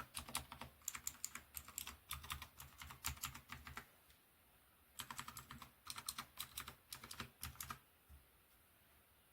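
Fast typing on a Dierya T68SE 60% mechanical keyboard with clicky blue switches. The typing comes in two runs of quick key clicks with a pause of about a second between them, and stops shortly before the end.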